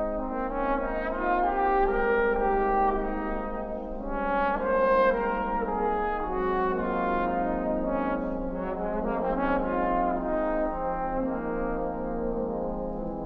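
Trombone choir playing slow, sustained brass chords that change every second or two, swelling louder about four to five seconds in and growing softer near the end.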